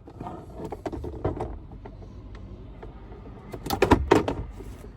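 Plastic clicks and rattles from a glove-box wiring harness connector being unplugged by pressing its tab and pulling it apart. Light handling noise first, then a loud flurry of clicks and knocks about four seconds in.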